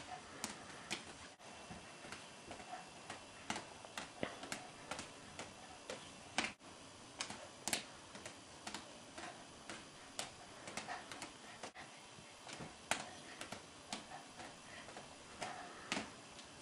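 Faint, irregular clicks and soft taps, a few a second: LED juggling balls being caught and thrown from hand to hand.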